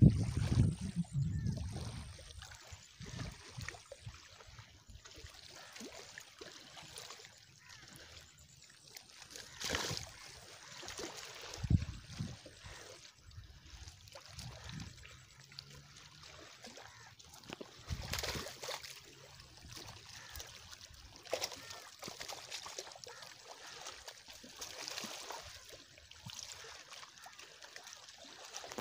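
A hooked black carp (kalu) splashing in the muddy shallows as it is hauled in to the bank by hand line, with water trickling and sloshing. A few sharp splashes stand out, around ten, twelve, eighteen and twenty-one seconds in, after a loud low rumble in the first two seconds.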